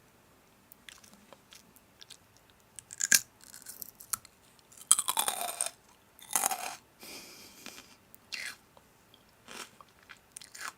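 Close-up crunching and chewing of crisp food, in irregular bites with quiet gaps between them; the loudest crunches come about three, five and six and a half seconds in.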